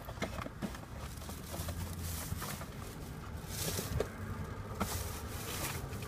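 Heat gun running with a steady low hum while shrinking heat-shrink tubing onto crimped wire ends, with light rustling and a few handling clicks.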